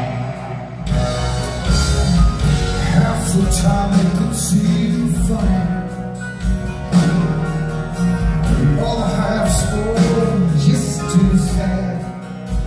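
Hard rock band playing live: a man singing over electric guitar, drums and keyboards.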